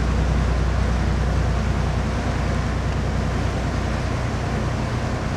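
Motor yacht's engine running steadily under way, a low drone with a steady rushing noise over it.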